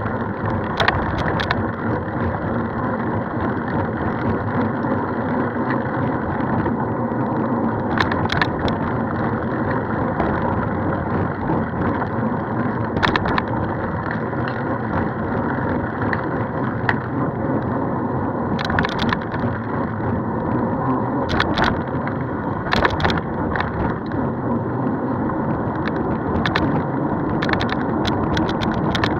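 Steady rushing road and wind noise of travel along a road, with a sharp click or rattle every few seconds.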